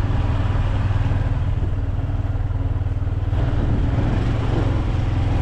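Motorcycle engine running steadily while riding along a dirt road, a low, even drone with no change in pace.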